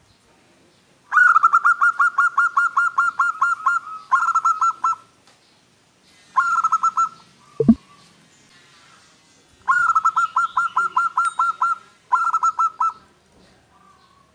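Zebra dove (perkutut) song: five bouts of rapid, evenly repeated staccato coos at about five notes a second, the first and fourth bouts the longest. A brief low thump comes just after the middle.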